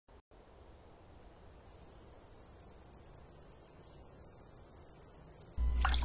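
Crickets chirping in a steady high trill. Near the end a much louder low hum cuts in, with a few clicks over it.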